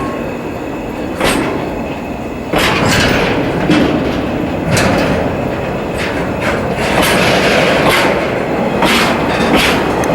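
Freight train of tank wagons rolling along the track: a steady rumble, with the wheels clicking over rail joints every second or two at uneven gaps.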